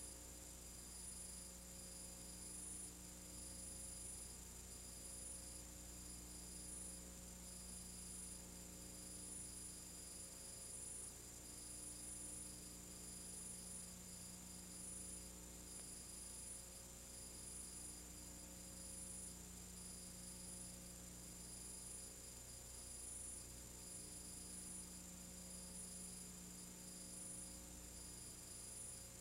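Faint steady electrical hum with a light hiss and a few thin, steady high-pitched whines. No other sound.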